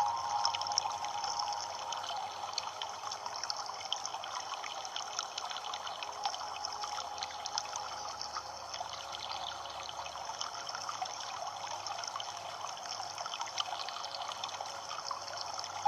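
Water trickling and splashing steadily, like a small stream running over stones, with a fine bubbling texture.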